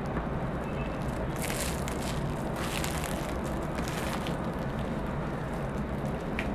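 Plastic shrink wrap on a keyboard box crinkling and rustling as it is handled and pulled open, in a few short bursts over a steady low hum.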